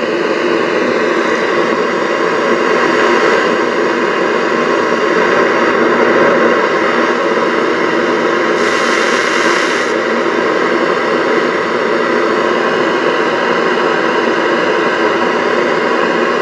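Radio static: a loud, steady hiss from a radio tuner board with no station tuned in, played through a small test speaker driven by the rebuilt TDA7057 amplifier. The hiss turns brighter and higher for about a second and a half, a little past halfway.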